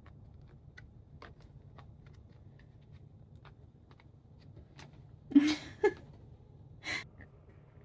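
Faint scattered clicks and creaks of a thin cardboard box as a cat shifts in it and steps out, with a few short breathy gasps a little past halfway.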